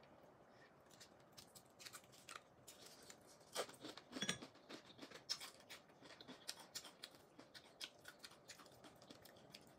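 Faint eating sounds of a steamed oyster being eaten: scattered small clicks and lip smacks of chewing, with a cluster of louder clicks about three and a half to four and a half seconds in.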